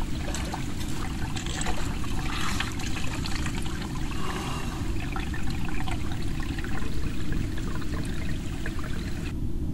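Water trickling and splashing as hands scoop it from a stream to wash the face, in irregular bursts over a steady low rumble.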